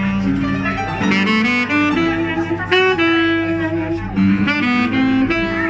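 Saxophone and upright piano playing live together, the saxophone carrying the melody in held notes and short phrases over piano chords.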